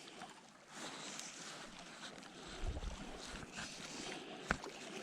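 Small mountain creek running steadily, with low wind rumbles on the microphone and a single sharp tap about four and a half seconds in.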